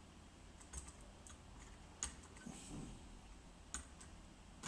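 Quiet room tone with a few faint, sharp ticks of small metal parts being handled while a wire is soldered onto an RCA plug held in a vise, about four ticks spread over the few seconds.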